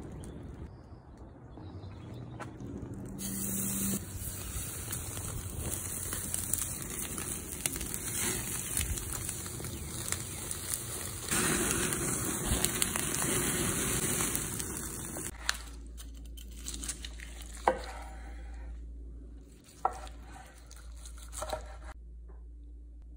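Tomahawk ribeye steaks sizzling on a grate over a charcoal fire while being basted with butter, a steady hiss flecked with small crackles. About two-thirds of the way through the sizzle stops and a few sharp knocks follow.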